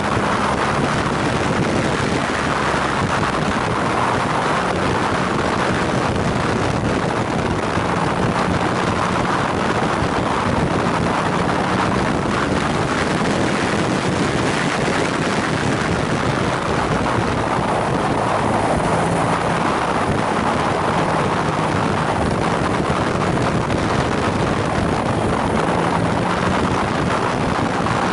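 Steady wind rush over the microphone of a motorcycle riding at road speed. Underneath it the BMW R nineT's air/oil-cooled boxer twin runs faintly, its note coming and going.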